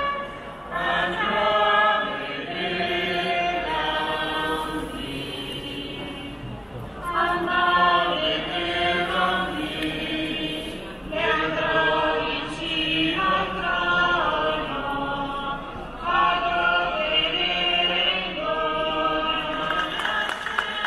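A choir singing a hymn unaccompanied, in long held phrases with short breaks between them.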